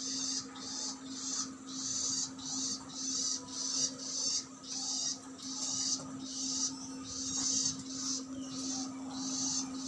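A bird's high, scratchy chatter in short bursts, about two a second, over a steady low hum.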